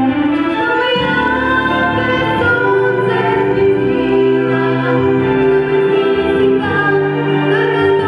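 Music: a pop song with a backing track and long held sung notes, choir-like.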